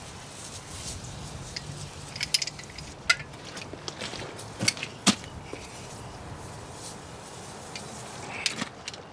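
Scattered sharp clicks and knocks of hands and tools working on an outboard motor's exposed powerhead, the loudest about five seconds in; the engine is not running.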